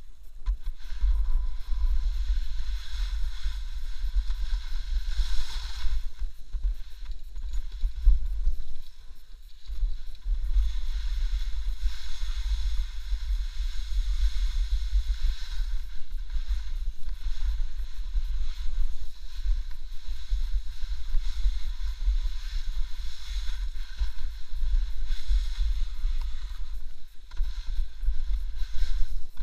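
Snowboard sliding and carving through soft snow, a steady hiss that breaks off briefly a few times, with wind buffeting the helmet-mounted camera's microphone as a constant low rumble.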